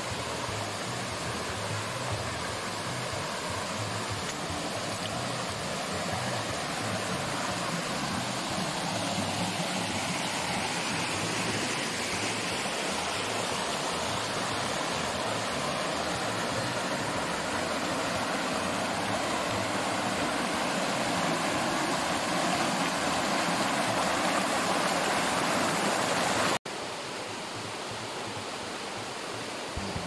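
Waterfall water rushing and splashing down over rock, a steady even rush. It breaks off abruptly near the end and goes on a little quieter.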